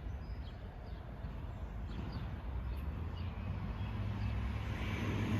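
Outdoor background: a steady low rumble that grows louder in the last second or so, with faint, short high chirps scattered through it.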